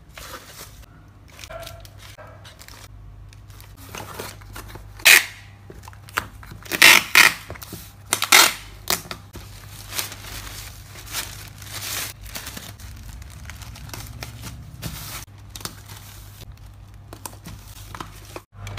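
Paper and mailer-bag packaging being handled, rustling and crinkling, with a few short, loud ripping sounds from about five to nine seconds in.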